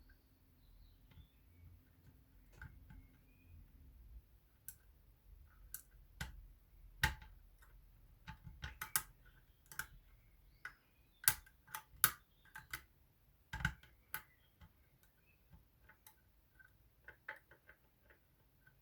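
Small metallic clicks and ticks of lock-picking tools working the levers inside a Union 3G110 five-lever lock under tension. They come at irregular spacing and are thickest and sharpest through the middle.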